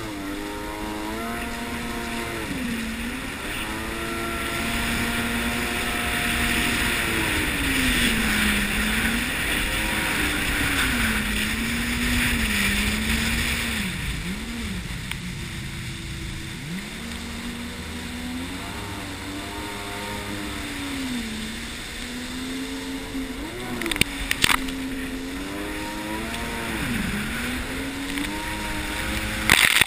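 Jet ski engine running under changing throttle, its pitch rising and falling again and again through the turns, over the hiss of water rushing past. Sharp splashes near the end.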